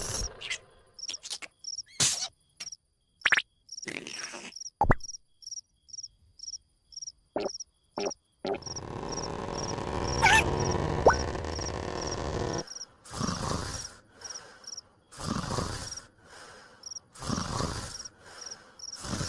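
Cartoon soundtrack with an even, high insect-like chirping, about two to three chirps a second, broken by short sharp clicks and pops. A longer noisy rushing stretch comes in the middle, and several short noisy bursts come near the end.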